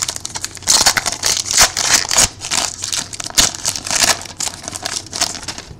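Trading-card pack wrapper crinkling and crackling as it is handled and torn open, with the cards inside rustling.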